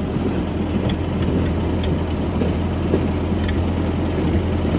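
Railroad motor car (track speeder) running steadily as it rolls along the rails, with a constant low engine hum.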